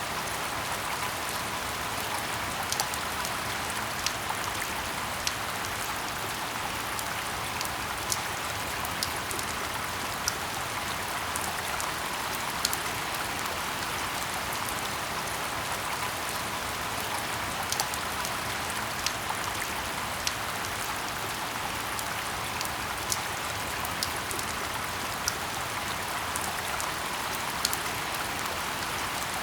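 Steady rain falling in a forest: an even hiss with louder single drops ticking close by every second or two.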